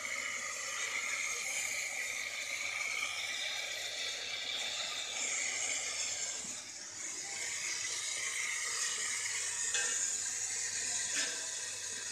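Steady hiss of steam and boiling milk in an open steam-jacketed mawa kettle while the milk is being reduced to khoya, over a faint low steady hum.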